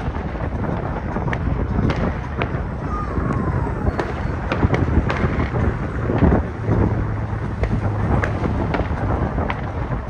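Fireworks display bursting: many sharp bangs in irregular quick succession over a continuous low rumble.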